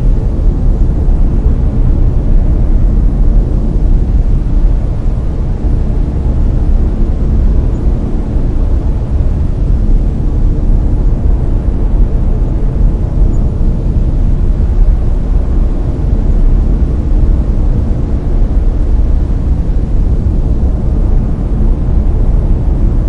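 Layered brown noise: a steady, loud, deep rumbling hiss, strongest in the bass and thinning toward the treble, with no changes or events.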